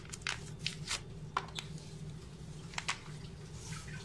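A packet of whipped-cream powder being handled and opened: a scatter of short, sharp crinkles and rustles, then the powder shaken into a stainless steel bowl near the end. A steady low hum runs underneath.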